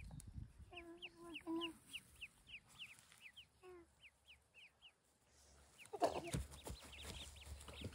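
Ducklings peeping: a run of short, high, falling peeps, about three to four a second. A faint voice briefly about a second in, and about six seconds in a rustle of steps through grass.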